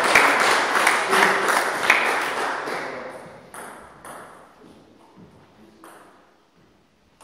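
Table tennis rally: the celluloid ball clicks sharply off the rackets and table, ringing in a reverberant hall. The clicks thin out after about three seconds and the sound fades to near silence near the end.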